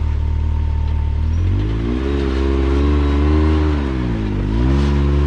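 Side-by-side UTV engine idling, then revved about a second and a half in and held, dropping back briefly around four seconds and revving up again near the end. The machine is working to climb a rock ledge.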